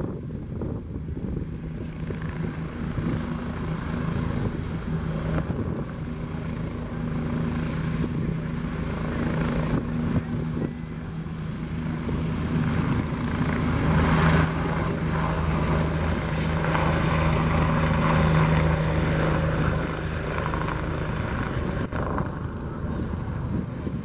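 Bell 429 twin-turbine helicopter hovering low and then moving off: a steady drone of turbines and rotor with a low hum. It grows louder from about halfway through as the helicopter transitions to forward flight.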